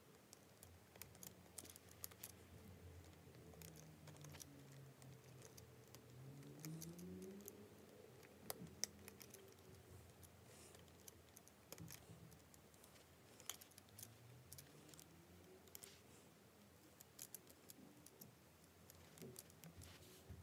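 Small Lego Technic plastic pins and parts clicking and tapping as they are handled and pressed into place, in scattered faint clicks.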